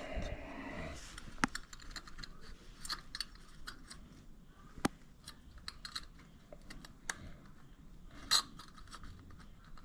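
Scattered small metallic clicks and taps of hands and a tool working at a lawn tractor's carburetor float bowl, with a louder short clatter near the end.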